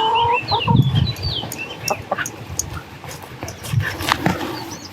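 Hens clucking, with a small bird twittering in short chirps at the start and again near the end.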